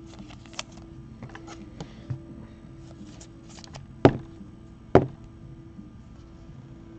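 Trading cards handled on a tabletop: faint shuffling and light taps, with two sharp clicks about four and five seconds in.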